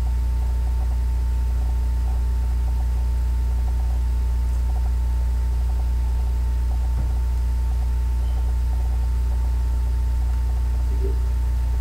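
A steady, loud low hum with a thin high tone above it, over faint scattered crackling from vegetables frying in a pan.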